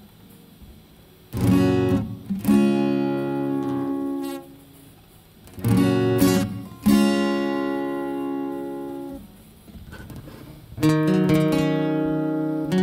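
Acoustic guitar strumming single chords, about five in all, each struck once and left to ring and fade before the next, after a near-quiet first second.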